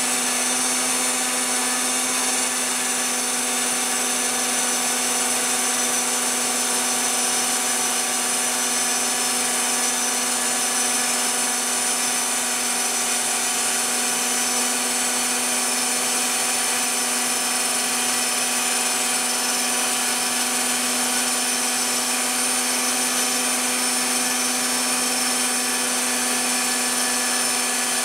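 Phlatprinter CNC mill cutting fibreglass sheet: the spindle motor runs with a steady whine while the bit grinds through the fibreglass.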